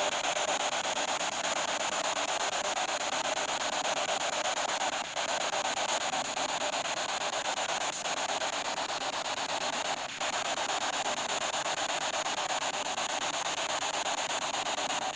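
Steady electronic static hiss from a ghost-hunting device's small speaker, cutting out for a split second about five seconds in and again near ten seconds.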